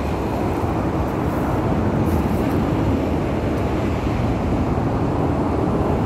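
Steady low rumbling ambient noise with no distinct event.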